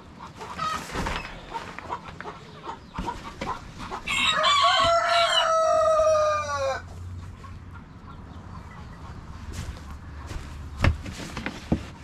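A rooster crows once, about four seconds in: a single drawn-out call of under three seconds that falls slightly in pitch and is the loudest sound. Two sharp knocks follow near the end.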